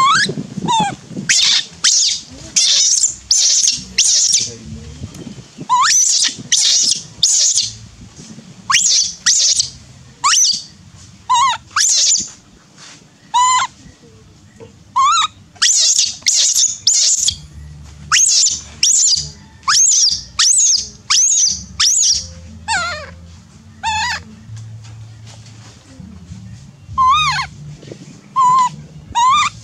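Infant macaque crying in distress: a long run of short, high-pitched squealing calls, each sweeping up in pitch, about one a second in bouts with brief pauses, typical of a baby monkey begging for milk when left alone.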